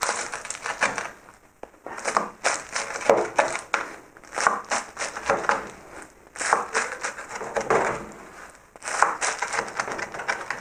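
Knife slicing through freshly baked, crisp-layered kol böreği (Sarıyer böreği) pastry. It gives off crackling crunches in repeated bursts, about one every second and a half, the sign that the pastry is baked crisp.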